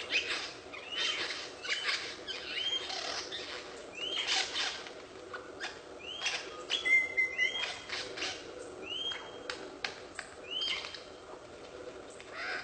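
A bird giving short rising-and-falling chirps, one every second or two, over a background of rustling noise.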